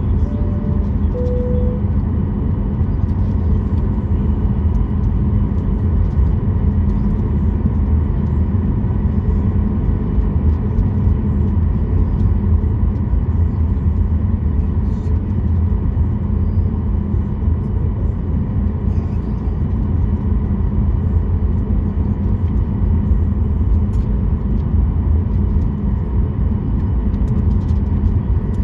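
Steady cabin noise of a Boeing 737 MAX 8, its CFM LEAP-1B engines running at a constant setting, with faint steady tones over a deep rumble. About a second in, a two-note high-then-low cabin chime sounds.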